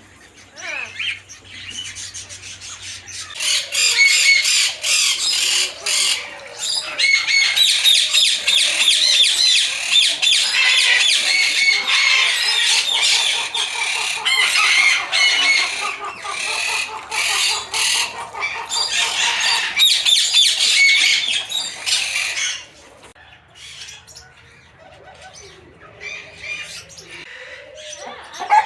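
Many aviary birds calling at once: a dense, shrill chatter of repeated high-pitched calls, which drops off sharply about 22 seconds in to a few scattered calls.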